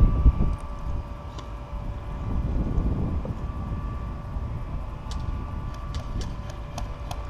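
Low rumbling noise on the microphone with a steady electrical-sounding hum, loudest at the start, then a scatter of sharp short clicks in the second half.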